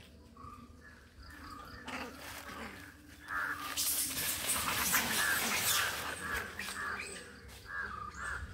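Macaques screeching harshly in a fight, the calls coming in rough repeated bursts, loudest from about three seconds in and easing off near the end.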